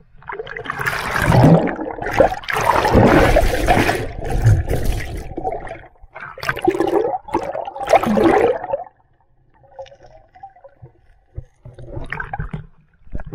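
A swimmer plunging into the sea: loud splashing and gurgling, with water churning and bubbling over the submerged microphone for several seconds. It dies down after about nine seconds, with a few more splashes near the end.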